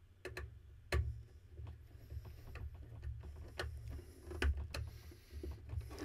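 Scattered clicks and taps of a small screwdriver and wire ends being worked at the plastic terminal block of a System Sensor duct smoke detector, the sharpest click about a second in, over a low uneven handling rumble.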